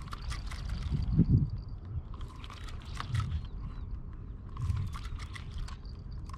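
Irregular clicks and knocks of fishing tackle being handled, over low rumbling handling noise on the microphone; the loudest thump comes about a second in.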